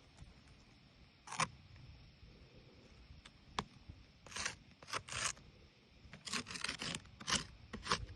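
A series of short scraping strokes on asphalt roof shingles: one about a second in, a sharp click a couple of seconds later, then a quicker run of scrapes over the last few seconds.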